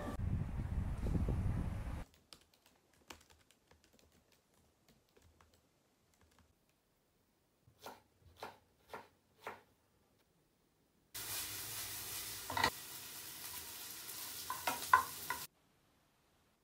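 A train's low running rumble for the first two seconds. Then four quick knife strokes through green pepper on a cutting board. Near the end, yakisoba sizzles in a frying pan for about four seconds, with a few sharp clicks.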